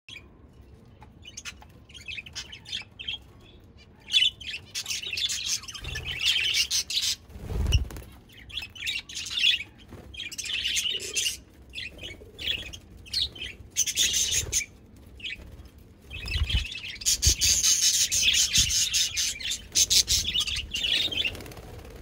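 Budgerigars chattering and chirping in quick, overlapping clusters, faint at first and louder from about four seconds in. A few dull low thumps come through as well.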